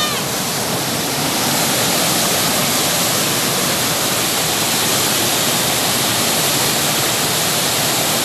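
Waterfall at Nalus Falls: the steady, unbroken rush of falling water.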